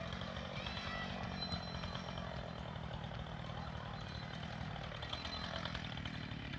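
A chainsaw engine running steadily.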